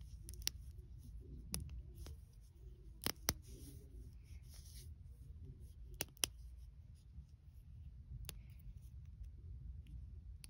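A glow stick being worked: a series of sharp, isolated cracks and clicks, some in close pairs, spaced irregularly a second or more apart over a low rumble.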